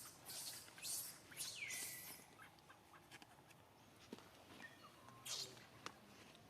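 Faint, high-pitched monkey squeaks and chirps in a few short bursts over the first two seconds, one sliding down in pitch, and once more about five seconds in.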